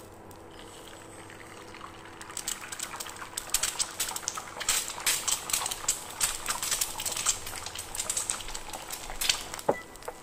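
An egg frying in hot oil in a nonstick pan: a soft sizzle as it goes in, building from about two seconds in into dense, irregular crackling and popping as the white bubbles and crisps.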